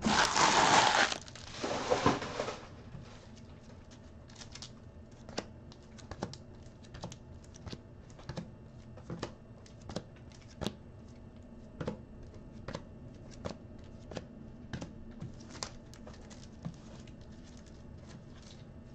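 Foil trading-card pack wrappers crumpled and gathered up for about two and a half seconds. After that, a long run of faint single clicks, roughly one every half second to second.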